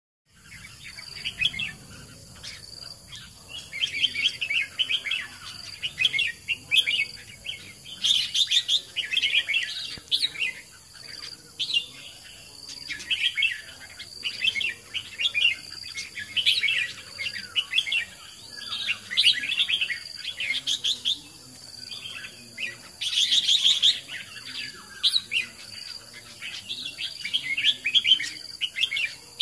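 Caged red-whiskered bulbul singing: short, quick chirping phrases repeated every second or two, with two louder, shriller bursts about 8 and 23 seconds in. A faint, steady high-pitched whine runs behind the song.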